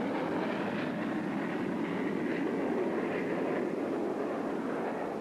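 Aircraft flying over, a steady rushing engine noise that fades slightly near the end.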